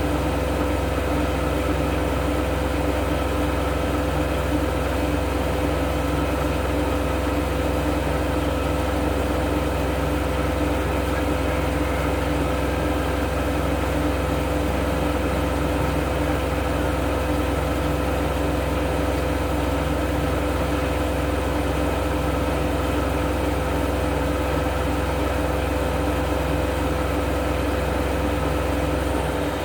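Siemens Extraklasse F1300A front-loading washing machine running steadily at speed, most likely in its spin, with a deep hum and a steady motor whine. The low hum drops away right at the end.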